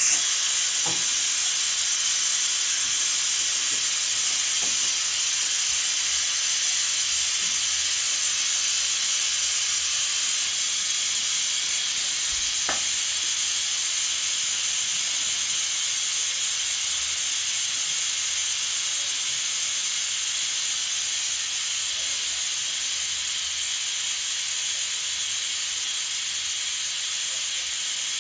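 Pressure cooker venting steam: a steady hiss that eases off slightly toward the end.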